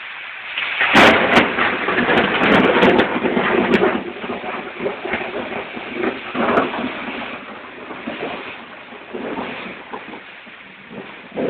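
Heavy rain pouring down. A loud surge starts about a second in, with a few sharp clicks, then the rain swells and eases unevenly and slowly dies down.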